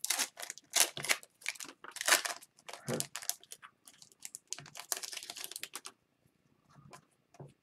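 Upper Deck hockey trading cards being flicked and slid through the hands one after another: a quick run of crisp clicks and rustles that stops about six seconds in, with a few faint clicks near the end.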